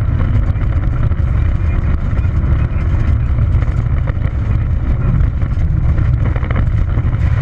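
In-car sound of a Peugeot 206 XS rally car driven hard on a gravel stage: a loud steady rumble of engine and tyres on loose gravel, with scattered clicks of stones striking the car.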